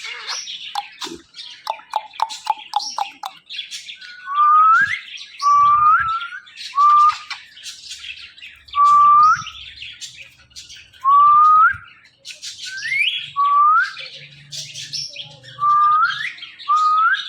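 Pet parrot whistling and chirping: a quick run of short notes, then about eight loud whistles, each sweeping upward at the end, with high chirps and squeaks in between.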